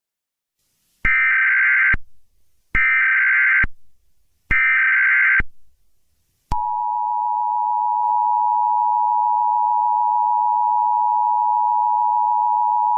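Emergency Alert System SAME header: about a second in, three short bursts of rapid data tones, each about a second long with brief gaps between them. About six and a half seconds in, the steady two-tone EAS attention signal starts and holds without a break.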